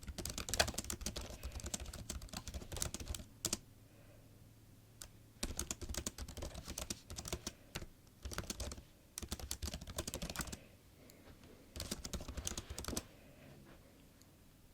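Laptop keyboard being typed on: rapid, uneven runs of key clicks in four bursts, separated by short pauses of a second or two.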